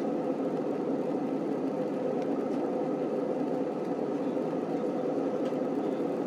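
Steady engine drone and rushing airflow inside the cabin of an Airbus A320 airliner on its descent to land, with a constant hum running under the noise.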